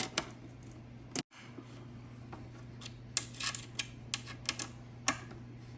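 Scattered light clicks and taps of bench parts and hardware being handled during flat-pack furniture assembly, bunched about three to five seconds in, over a steady low hum.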